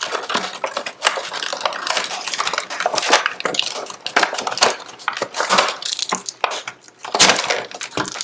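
Cardboard box and packaging being handled as the contents are taken out: irregular rustling and crackling with small knocks, and a sharper knock about seven seconds in.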